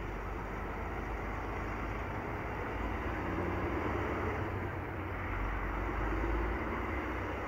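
Diesel engine of a Western Star heavy tow truck running under load as it pulls away towing a box truck: a steady low rumble that grows a little louder about three seconds in and again near the end.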